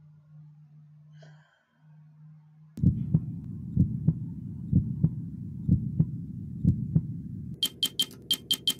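Title-sequence sound design. A faint low hum gives way, about three seconds in, to a deep rumbling drone with a heavy low pulse about once a second. Near the end come rapid typewriter-style key clicks, about six a second, as text is typed out.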